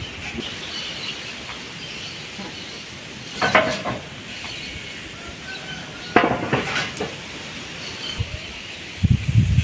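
Two sharp knocks of hard objects a few seconds apart, the second a short cluster, over a faint outdoor background. Wind buffets the microphone near the end.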